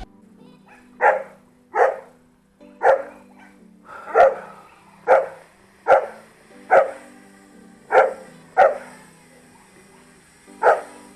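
A dog barking, about eleven single barks at uneven intervals, over a faint steady low hum.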